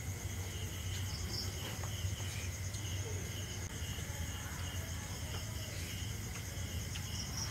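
Crickets and other insects chirping in a steady night chorus, several rapid pulsed trills at different pitches, over a low steady hum.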